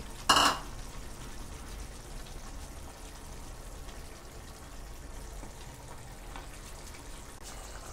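Keema (minced meat with spices) frying in a pan with a steady, low sizzle, and a single sharp knock about half a second in.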